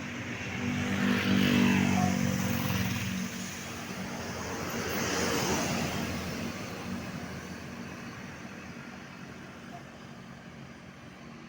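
Road vehicles passing. A heavy vehicle with a steady low engine note goes by loudly about a second in, a second vehicle passes around five seconds in, and then the traffic sound fades.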